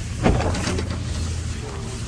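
Boat engine running with a steady low hum, under faint voices.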